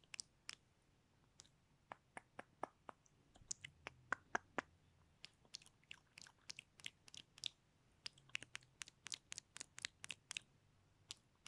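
Close-miked ASMR mouth sounds: quick, irregular wet clicks and smacks of lips and tongue, several a second, with short pauses.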